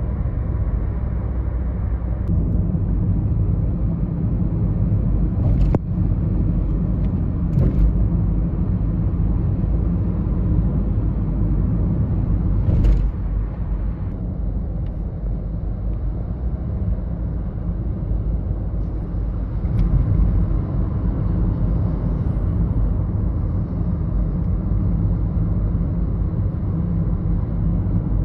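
Steady low rumble of road and engine noise from a car travelling at speed on a highway, with a few brief clicks here and there.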